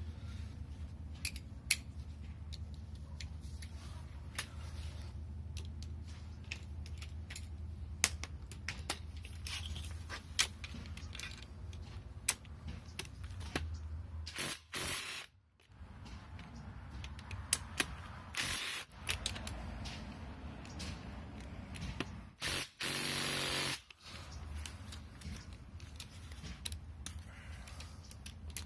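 Metal tools clicking and clinking on the engine while bolts are worked loose, with a short burst of a cordless impact gun about two-thirds of the way through.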